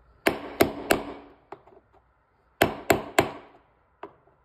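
Hammer blows on a flathead screwdriver held against a casement window operator's metal hub: two sets of three sharp strikes, about a third of a second apart, with a couple of faint taps between. The blows dent the metal around the arm's stud to lock it in place so it can't unscrew.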